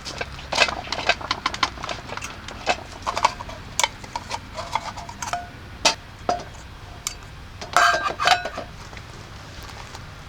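Clatter of tableware or cookware being handled: a string of sharp taps and clinks, a few ringing briefly, with the densest cluster near the end.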